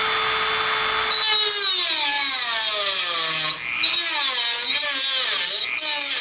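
Dremel rotary tool with a cutting wheel cutting around the metal can of a tubular filter capacitor. Its whine holds steady for about a second, then drops and recovers in pitch again and again as the wheel bites into the metal, with a couple of brief breaks where the tool is eased off.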